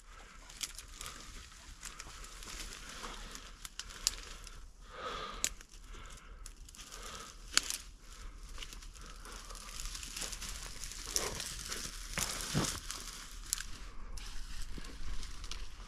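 Dry brush and grass rustling and crackling, with scattered sharp twig snaps, as the hunt moves through the cover.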